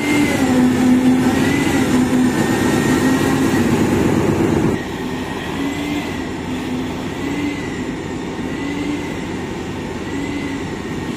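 An engine running steadily with a slightly wavering pitch. It drops to a lower level about five seconds in.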